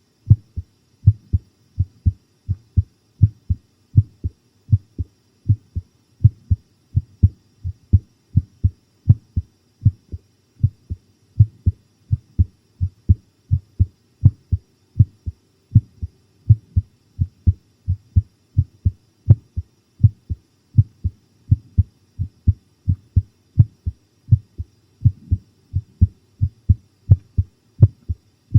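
A person's heartbeat pounding fast, each beat a double thump (lub-dub) in a steady rhythm. It is a heart racing from fright.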